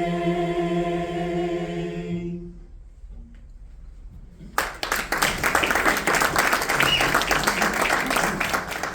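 A cappella choir holding a final sustained chord that fades out about two seconds in; after a short pause, an audience breaks into applause.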